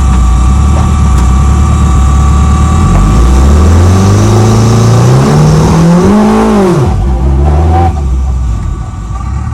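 Honda-swapped Toyota MR2's engine, heard from the driver's seat, running steadily at low revs, then a clutch-slip launch about three seconds in: the engine note climbs as the car pulls away, peaks and falls off sharply as the throttle is lifted about seven seconds in.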